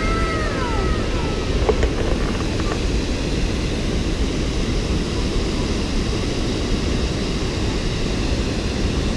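Waterfall: steady rushing of falling water. A few short falling whistle-like notes sound near the start.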